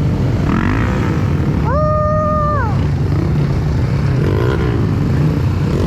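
Small petrol engine running steadily with a low drone. About two seconds in, a brief higher tone rises, holds for about a second, then falls away.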